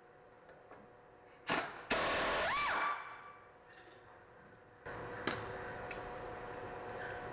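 A tool running on the 18 mm caliper mounting bracket bolt of a front brake: a loud whirring burst about a second long, with a rising whine, then a few light metallic clicks.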